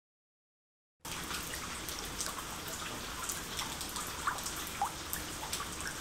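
Silence for about a second, then the dripping and trickling of water in a storm drain: a steady wet hiss with scattered drops plinking now and then.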